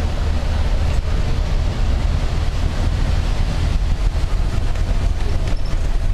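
Steady low rumble of a bus running along a wet road, engine and tyre noise heard from inside the cabin.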